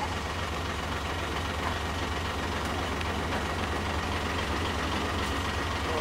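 Flatbed carrier truck's engine idling steadily, a low even rumble.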